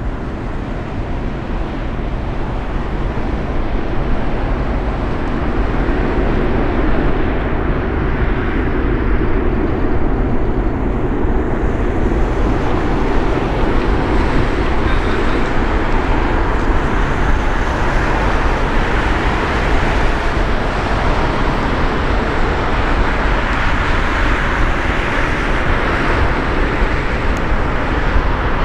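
Jet noise from the two General Electric CF6-80C2 turbofans of an Airbus A300-600ST Beluga climbing out at takeoff power. It is a loud, steady rumble that grows over the first several seconds and then holds.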